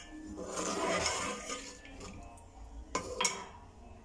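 Water poured from a mug splashing into a metal cooking pot of vegetable masala, then a metal slotted spoon clinks sharply against the pot twice about three seconds in.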